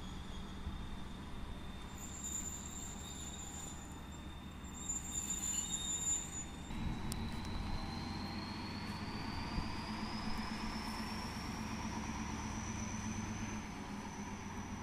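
Diesel locomotive running as it approaches, its engine note growing louder about halfway through, with a thin high whine that rises slowly in pitch over several seconds.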